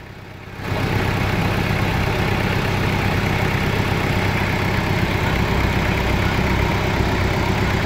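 A vehicle engine idling steadily, a low even rumble. It is briefly muffled for about half a second at the start.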